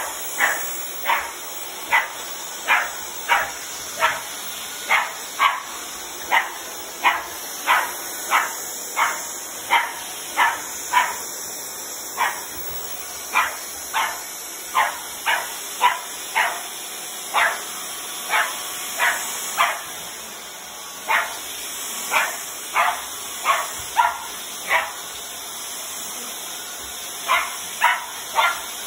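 American Cocker Spaniel puppy barking over and over in short, sharp yaps, about one to two a second, with a short pause near the end.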